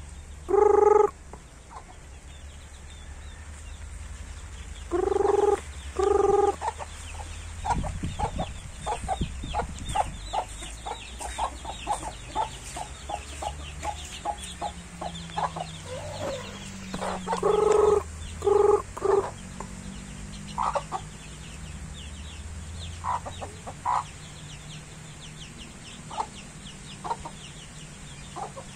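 Chickens clucking: a dense run of short, rapid clucks in the middle, broken by several loud calls about half a second long that come in pairs, the first pair right at the start and two more pairs in the first and second thirds.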